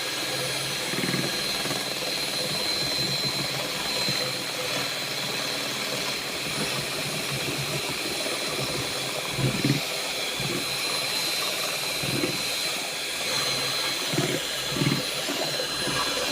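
Electric mixer running steadily, mixing cake batter: an even whirr with a steady high whine, and a few soft low bumps partway through.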